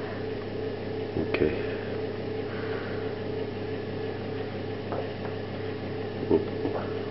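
Steady mechanical hum of a running kitchen appliance, with a few faint light ticks.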